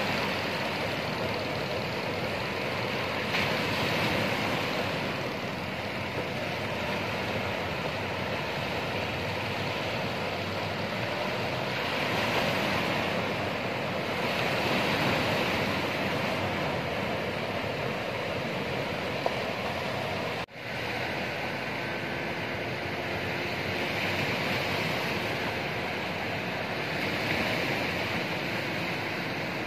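Ocean surf breaking and washing ashore, a steady rush that swells every few seconds as waves come in, with the outboard motor of a fishing boat faintly beneath it.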